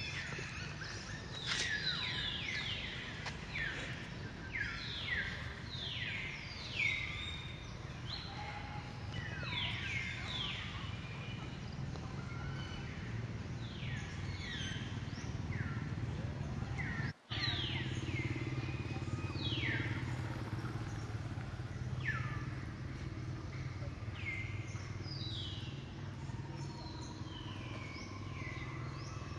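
Birds calling over and over with short, downward-sliding whistles, over a steady low hum. The sound cuts out for an instant a little past halfway.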